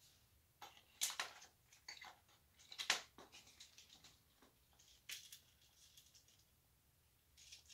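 Faint clicks and rustles of jewelry being handled: a piece put down and the next one picked up, in a handful of short, irregular sounds.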